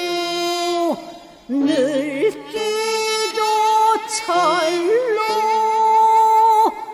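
A woman singing a slow Korean traditional-style song with long held, drawn-out notes and wide vibrato. Notes slide between pitches and fall off sharply at their ends: once about a second in, and again near the end. A faint low accompaniment runs beneath.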